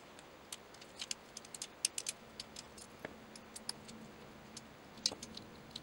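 Faint, irregular small clicks and ticks, several a second, as the Picatinny adapter and its small screws are worked off an Atlas bipod by hand.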